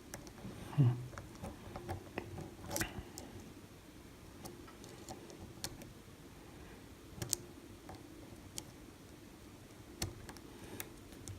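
Lock pick working inside the keyway of an old Ruko 500 pin-tumbler lock under tension: faint scraping with a handful of sharp, spaced-out ticks as the pick probes the pins. Pin 4 gives no set here.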